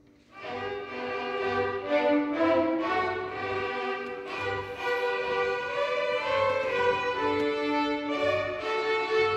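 String orchestra of violins, violas and cellos entering together about a third of a second in, then playing a sustained, flowing melody over lower string harmony. The piece is part of an arrangement of Ukrainian folk songs.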